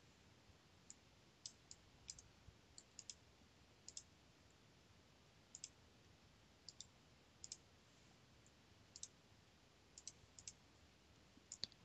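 Faint computer mouse clicks, single and in quick pairs, scattered irregularly about once a second.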